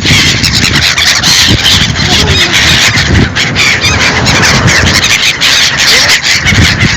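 A hungry flock of birds calling loudly over one another: many honking, squealing calls overlapping in a constant din, over a low rumble.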